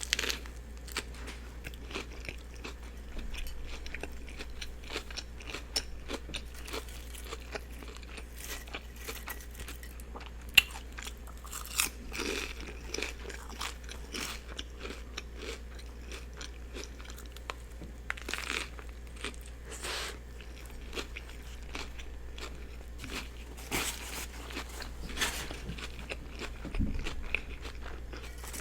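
Close-miked eating of a turkey and cheese sub: bites and moist chewing with crisp crunches from the bread and lettuce, in short irregular clicks and crackles over a steady low hum.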